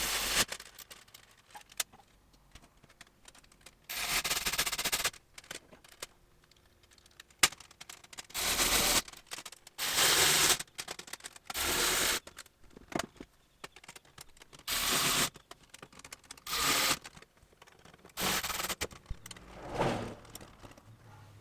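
Wrench and hex key snugging up the nuts and bolts on the aluminum inner fender's backing plate: about eight short bursts of rapid metallic clicking and scraping, with pauses between them.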